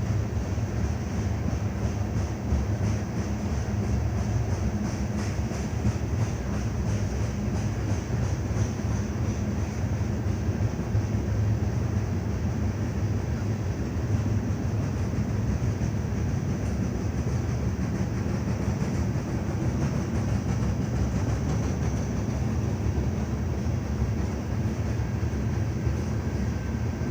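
BNSF coal train's cars rolling by on the rails, a steady rumble and rattle with no horn.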